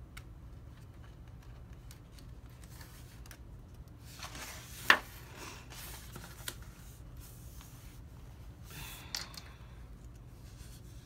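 Paper pages of a coloring book being turned and pressed flat: a rustle that peaks in one sharp paper snap about five seconds in, and a shorter rustle with a click near the end.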